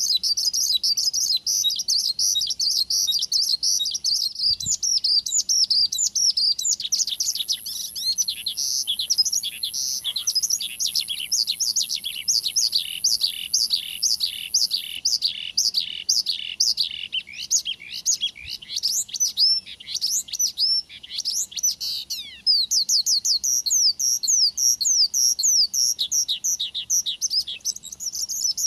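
Male Horsfield's bush lark (branjangan) in continuous full song, high-pitched. Dense warbling at first, then a long run of repeated down-slurred notes about two or three a second, turning to quicker sweeping notes near the end.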